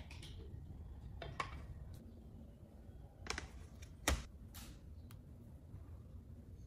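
A few light clicks and taps from plastic dessert cups, a spoon and a tray being handled, the loudest about four seconds in, over a low steady hum.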